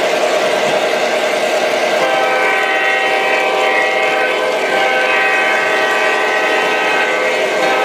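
O scale model train running with a steady mechanical hum, then from about two seconds in a multi-tone train horn sounds and holds, with brief dips, through the rest.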